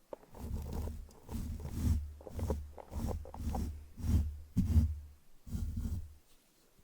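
A paintbrush brushed directly over a microphone: a run of about nine quick strokes, roughly two a second, each a swish with a deep rumble from the brush hitting the mic, stopping shortly before the end.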